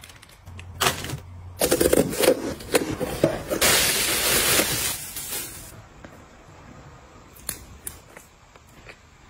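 Items being handled during restocking: sharp clicks and crinkly rustling, then a steady hiss lasting about two seconds, followed by a few light taps.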